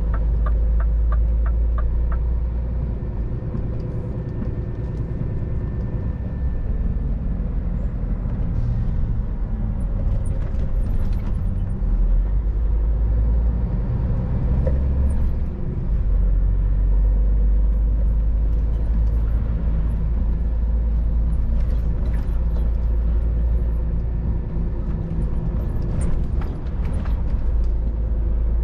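Scania R500 truck's diesel engine running at town speed, heard inside the cab over a steady low road rumble. A short run of light ticks comes in the first couple of seconds.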